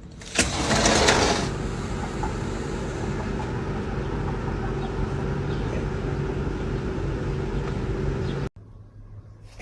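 A steady machine-like running noise with a low hum. It starts with a louder rush about half a second in and cuts off suddenly near the end.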